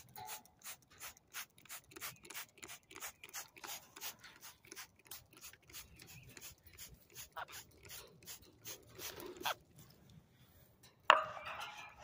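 Hand trigger spray bottle squeezed over and over, about three quick sprays a second, trailing off near the end. Then one short, loud, harsh sound about a second before the end.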